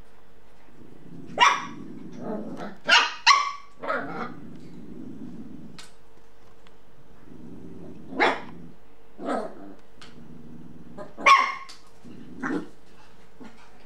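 Shiba Inus growling and barking. Several stretches of low growling are broken by short, sharp barks, about five loud ones and a few smaller. This is an adult male guarding his toothbrush chew from puppies.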